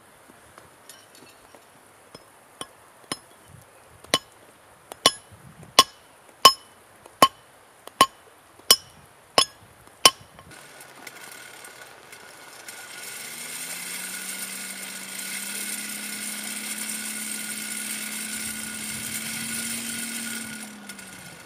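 About a dozen hammer blows on the steel nail-header bar give sharp ringing clinks roughly every 0.7 s, growing louder. Halfway through they give way to a forge blower running: a steady whirr with a high whine and a low hum that rises in pitch as it spins up, then holds until it stops near the end.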